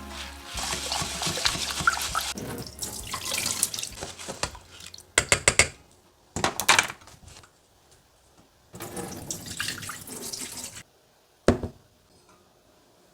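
Water from a kitchen tap running into a sink in several separate spells, stopping and starting, with a single short knock near the end.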